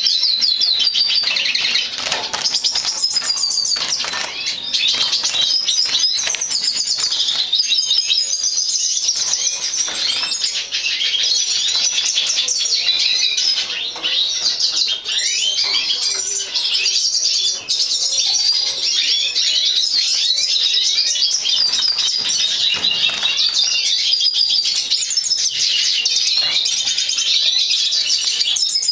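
Dense, unbroken chirping and twittering of many small cage birds, high-pitched and overlapping throughout.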